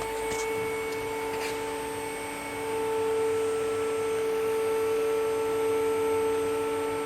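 Two-post car lift's electric hydraulic power unit running, a steady motor-and-pump whine as it raises the carriage on freshly replaced cylinders; it grows louder about two and a half seconds in.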